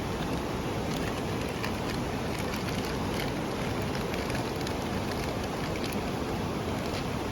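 Open campfire roasting a whole chicken: a steady sizzling hiss with scattered faint crackles.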